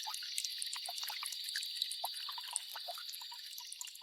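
Rain falling on a lake's surface: a steady hiss with many small, scattered drop plinks, getting a little quieter near the end.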